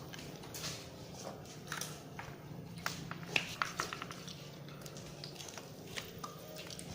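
People eating longan fruit: scattered quick clicks and wet smacks of peels cracking and mouths chewing.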